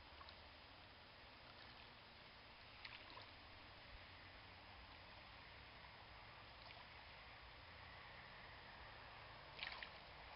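Faint splashing of shallow creek water stirred by wading, a few soft splashes about three seconds in and a clearer short cluster near the end, over a steady hiss.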